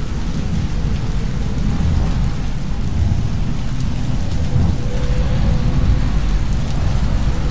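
Designed sci-fi 'magnetic planet' ambience: a steady, dense low rumble with a crackle through it, much like a thunderstorm. A faint hum comes in about five seconds in and fades again.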